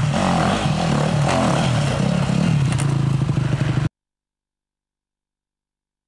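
Enduro dirt bike engine revving up and down as the bike is ridden over rough ground. The sound cuts off suddenly about four seconds in, leaving silence.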